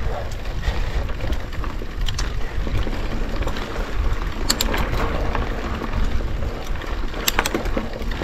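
Mountain bike climbing a rough, rocky trail, heard from a chest-mounted action camera: a steady rumble of tyres rolling over dry gravel and rock with wind on the microphone, and sharp clicks of the bike rattling over stones about four and a half and seven seconds in.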